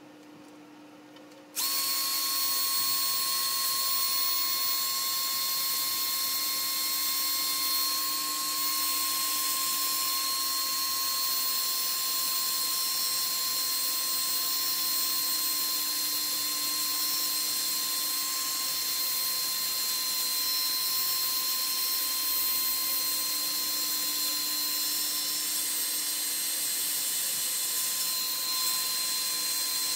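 Cordless drill running steadily with a sanding disc pressed against the outside of a black walnut bowl, starting suddenly about a second and a half in, with a high whine over a hiss.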